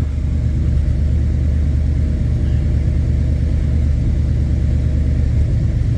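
Jeep J10 engine idling steadily, a smooth even hum with no knock, warming up after reassembly; the owner calls it quiet even though it has a bad cam bearing.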